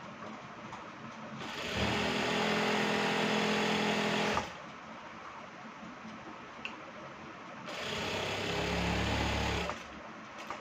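Industrial flatbed sewing machine stitching fabric in two runs, about three seconds and then about two seconds long, each starting quickly and stopping abruptly, with a pause of about three seconds between them.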